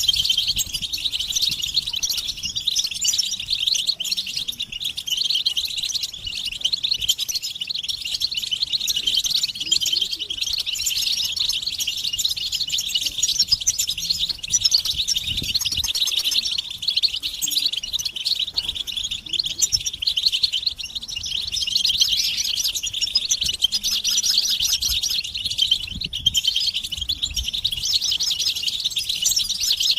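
Several European goldfinches twittering and chirping together in a dense, unbroken chorus of overlapping calls. These are excited mating and readiness calls.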